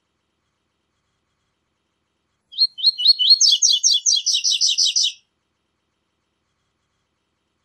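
Double-collared seedeater (coleiro) singing one song phrase of the 'tui tui zel zel' type, starting about two and a half seconds in and lasting under three seconds. A few short high sliding notes lead into a faster run of repeated notes.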